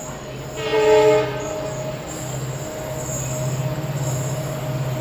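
Indian Railways locomotive horn giving one short blast, under a second long, about half a second in, over the steady low rumble of a train running.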